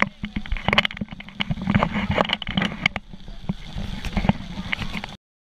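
Heavy rain drumming on an umbrella canopy just overhead, with irregular close drop impacts over a steady wash of rainfall. It cuts off suddenly about five seconds in.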